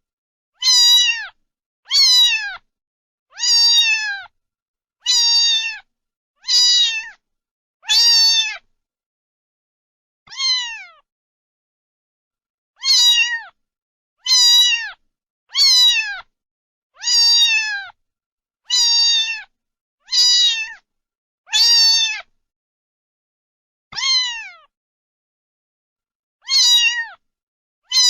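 A cat meowing over and over, one high meow about every second and a half, each dropping slightly in pitch at its end, with a few longer pauses between.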